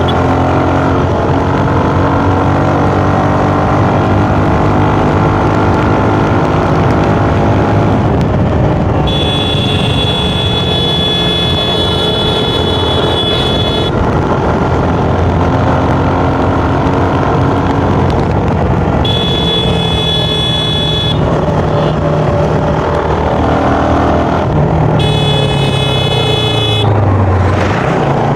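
Stock Suzuki Gixxer's single-cylinder engine running under riding, its pitch rising and falling as the revs change through the gears. A high, steady tone sounds three times for a few seconds each over the engine.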